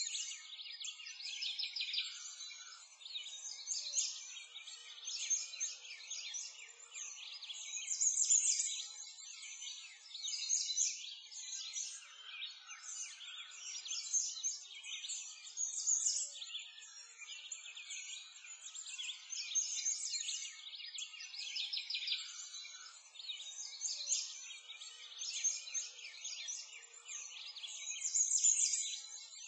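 Many small songbirds chirping and singing at once in a busy, unbroken chorus of short high chirps and trills.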